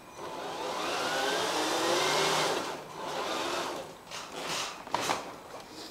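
6WD RC crawler's electric motor and geared drivetrain whining under throttle as the drive shafts turn. The whine rises for about two and a half seconds, comes again briefly, then eases off with a couple of clicks near the end.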